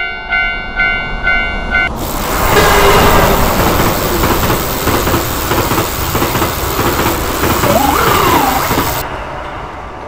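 Japanese railroad crossing alarm bell ringing about twice a second. About two seconds in, a train passes loudly over the crossing, with a steady rush of wheel and rail noise that drowns the bell for around seven seconds before dropping away near the end.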